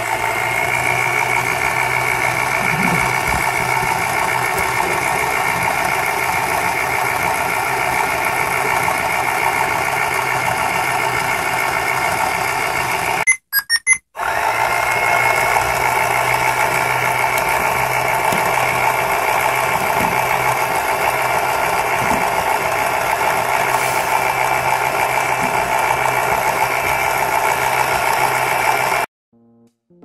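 Battery-operated toy front-loading washing machine running, its small motor and drum whirring steadily as the doll clothes tumble. About a third of the way in it stops for a moment with a few short beeps, then starts again and cuts off shortly before the end.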